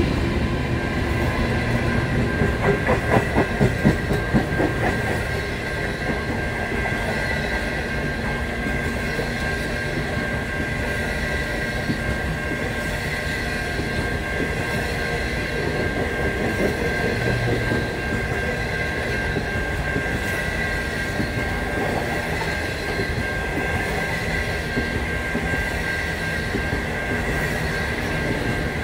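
Indian Pacific passenger train's stainless steel carriages rolling past close by: a steady rumble of wheels on rail with a steady high-pitched whine over it. A run of rhythmic clickety-clack comes about three seconds in.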